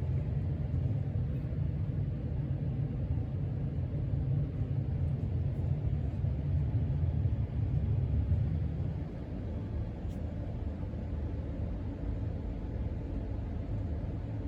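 Casablanca Panama 5 ceiling fan running near full speed: a steady low rush of air from the turning cane blades with the motor's hum. It eases off a little about nine seconds in.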